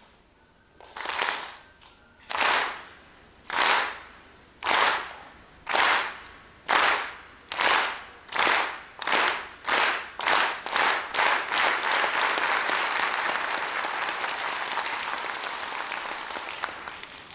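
Audience clapping together in time, slow at first and speeding up, until about twelve seconds in the claps run together into continuous applause that slowly fades.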